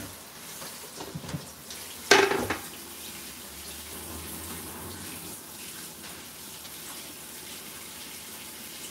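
A metal lid clatters down onto a cooking pan about two seconds in, a short rattle after a few light knocks, over a steady low hiss.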